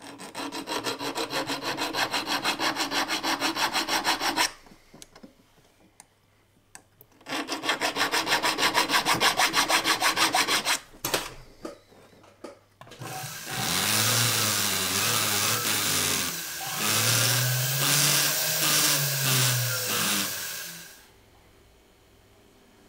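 A needle file rasping against the inside of an 18ct gold ring in quick, even strokes, in two runs of about four seconds each. From about halfway, a rotary tool grinds at the ring for about eight seconds, its motor speed rising and falling.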